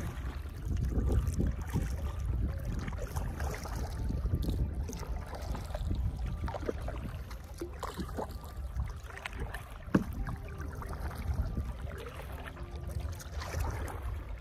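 Kayak paddle strokes: water splashing and dripping irregularly over a steady low rumble, with one sharp knock about ten seconds in.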